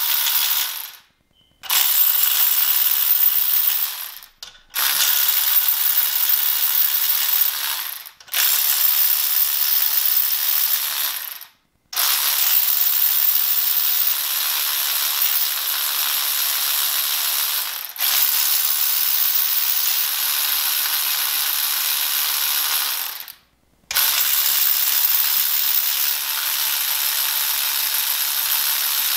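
Cordless electric ratchet spinning the steel M10 main bearing cap bolts down into an engine block, one bolt after another: a steady high whir in runs of a few seconds, stopping briefly between bolts about seven times.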